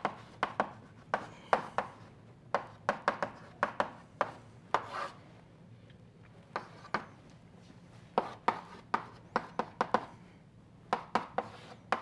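Chalk writing on a blackboard: quick clusters of sharp taps and short scrapes as the strokes go down, thinning out to a few taps in the middle.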